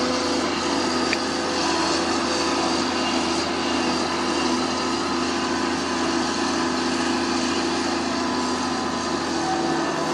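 Sunward SWE210 excavator's diesel engine running steadily while the machine works its boom and bucket digging soil.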